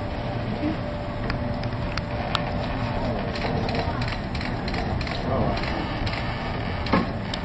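A ship's fittings creaking and clicking irregularly over a steady low rumble as the vessel labours in a heavy storm sea, with a sharper knock near the end.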